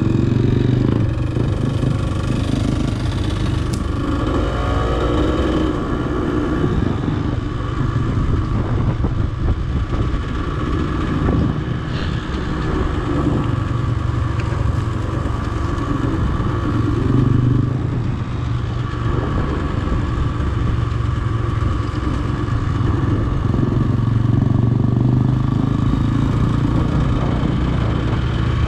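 Dirt bike engine running while under way at moderate speed, with the throttle opening and easing through the ride; the revs rise noticeably about four to six seconds in.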